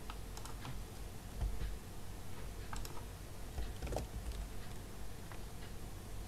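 Faint, irregular keystrokes on a computer keyboard, a few at a time with short pauses between.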